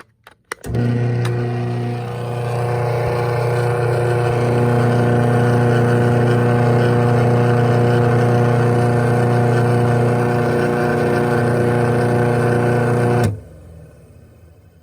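Craftsman 1/2 hp chain-drive garage door opener starting with a couple of clicks, then its motor and chain drive running steadily as it opens the door. It stops abruptly about 13 seconds in.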